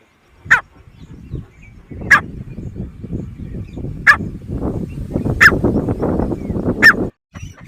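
Loud, short animal calls, five in all, about one every second and a half, over a low rumbling noise that stops shortly before the end.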